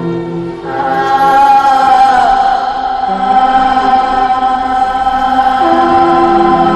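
Improvised music of chant-like voices holding long notes at several pitches at once. It swells louder about a second in, and the lowest held note shifts twice.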